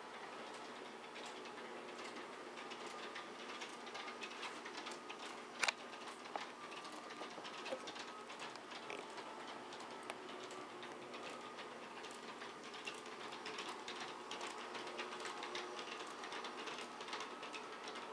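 Electric model train running on its track: a steady low motor hum under a quick, continuous patter of small wheel clicks, with one sharper click a little over five seconds in.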